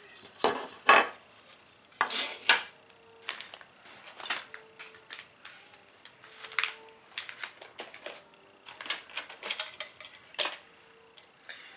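Small hard plastic parts being picked up and set down on a workbench: a string of irregular light clicks and clatters.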